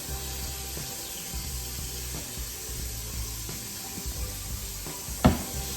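Soft background music under a steady hiss and low hum, with a single sharp click near the end.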